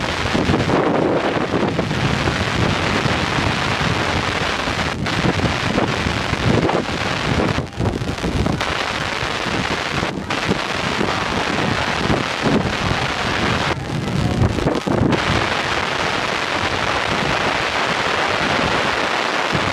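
Wind buffeting the camera's microphone: a loud, steady noise that briefly drops away a few times.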